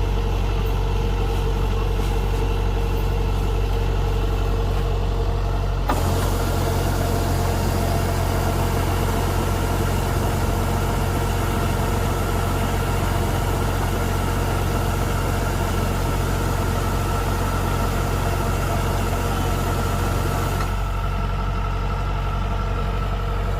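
Kubota DC-105X combine harvester running steadily with a constant engine hum. About six seconds in, a broad rushing noise joins suddenly, then cuts off just as suddenly near the end.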